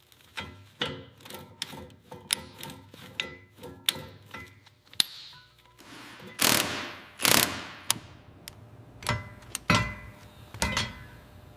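Metal hand tools and car parts clinking and knocking in a quick run of sharp clicks with short metallic ringing, broken by two louder, longer noisy sounds about halfway through.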